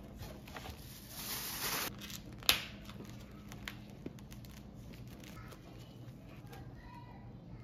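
Plastic wrap on a foam meat tray crinkling and tearing as gloved hands peel it back, with a sharp snap about two and a half seconds in and smaller crackles after it.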